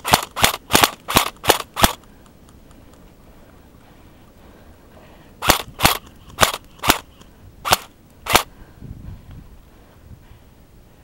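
Airsoft gun fired on semi-automatic: a quick string of six sharp shots, then after a pause of about three and a half seconds six more, more widely spaced.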